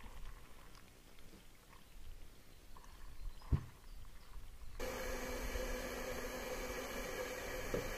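Water poured from a bottle into a Jetboil stove's cooking cup: a faint trickle with small clicks and one knock about three and a half seconds in. Nearly five seconds in, a steady hiss with a low hum sets in suddenly, the Jetboil gas stove burning.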